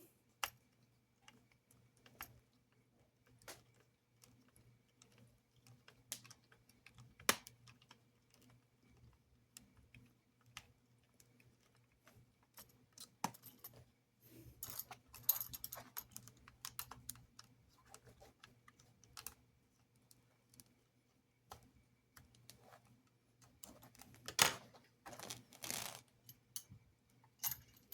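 Scattered light clicks and taps of small plastic and metal model-train parts being handled and fitted, as a model locomotive's pony front truck is put back in place. A few louder clicks come near the end.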